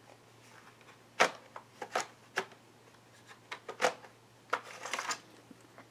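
Irregular sharp clicks and taps of small plastic and metal laptop parts being handled, about ten of them between one and five seconds in, over a faint steady hum.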